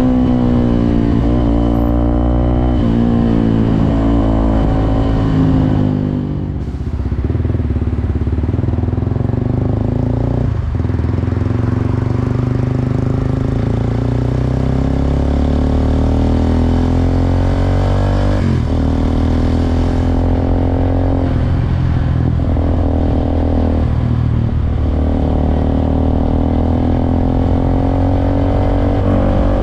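Suzuki Gixxer SF 250's single-cylinder engine running under way, its note climbing and falling as the bike speeds up and slows, broken by several short breaks in the pitch.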